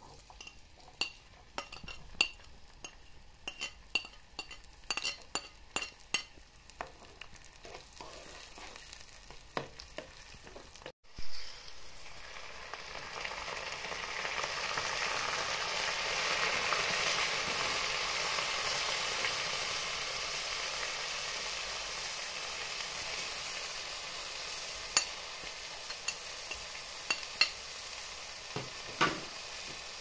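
Sharp clinks and scrapes of a utensil stirring in a pan. Then, after a short break, food frying in hot oil, sizzling steadily and growing louder for a few seconds, with a few more clinks near the end.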